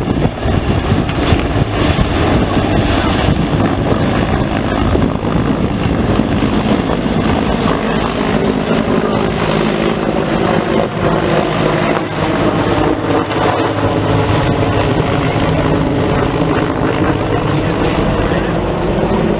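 Sikorsky CH-53 heavy transport helicopter flying overhead in a display manoeuvre: the loud, steady beat of its six-bladed main rotor over the noise of its twin turboshaft engines. In the second half a droning pitch sags and then climbs again as the helicopter banks and turns.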